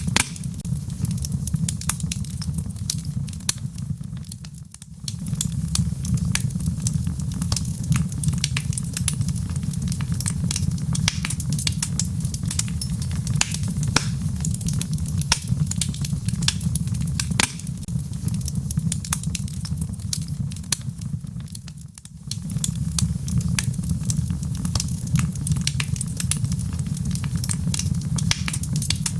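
Wood fire burning in a fireplace: a steady low rumble of flames with dense, irregular crackles and pops from the burning logs. It fades down briefly twice.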